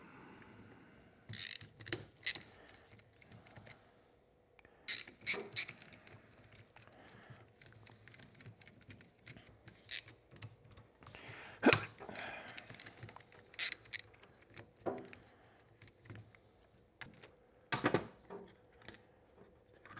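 Small metal clicks, taps and knocks of a hand screwdriver and a carburetor being handled on a workbench as the carburetor's screws are backed out. They come scattered with short gaps, the loudest a little over halfway through and a few more near the end as the screwdriver is set down.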